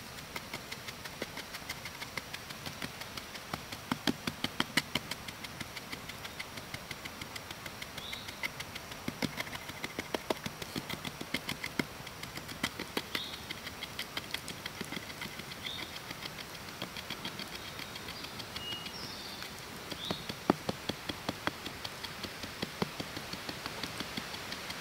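A wooden stick ramming a 50-50 sand-and-clay molding mix into a stick-built flask frame, packing the mold: a long run of sharp, irregular knocks, two or three a second, some much harder than others.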